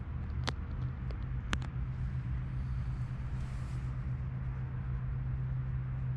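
A steady low rumble, with a few sharp clicks in the first couple of seconds and a short hiss about three and a half seconds in.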